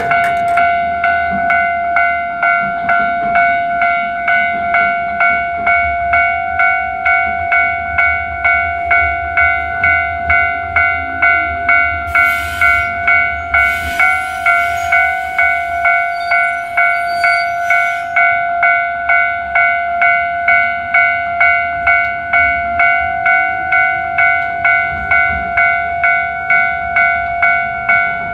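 Electronic crossing warning bell ringing steadily, about two rings a second, while an Echizen Railway train runs in to the platform with a low rumble and brief bursts of hiss midway.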